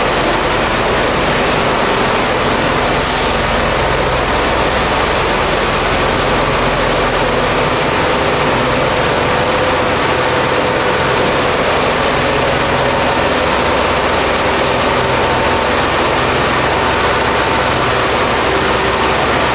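Tunnel-washing rig's high-pressure nozzles spraying water against the tiled tunnel ceiling and walls: a loud, steady hiss of spray over the running engine and pump that drive it.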